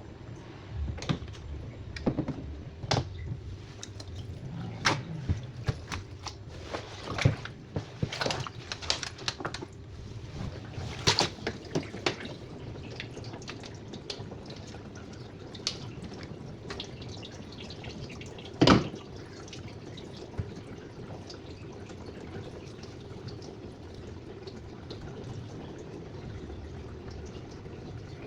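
Water dripping and splashing with scattered clicks and knocks, as a twin-tub washing machine's water filter is handled and rinsed; the knocks come thickly in the first half, with one louder knock a little past the middle.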